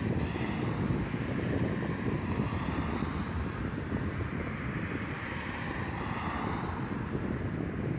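Cars driving past on a wide city road, the traffic noise swelling as one car passes at the start and another about six seconds in, over steady wind buffeting on the microphone.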